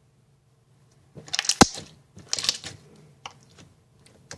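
Slime being squeezed and worked by hand, giving crackly clicks and small pops: two bursts starting about a second in, with one sharp loud pop in the first, then a few scattered single clicks.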